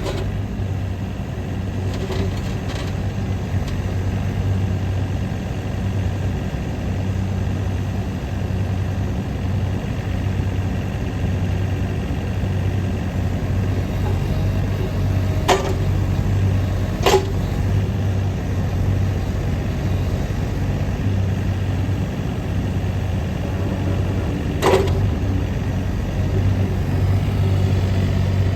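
Takeuchi TB230 mini excavator's diesel engine running steadily. Three short sharp clicks or knocks come through: two about halfway through, a second and a half apart, and one more near the end.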